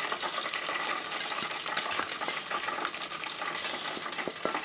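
Hot oil sizzling and crackling in a deep fat fryer as the wire basket of freshly fried battered balls is lifted out and shaken to drain the oil.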